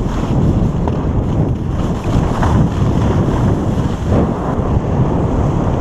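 Wind buffeting the microphone of a downhill skier's action camera in a steady low rumble, with skis sliding over snow underneath.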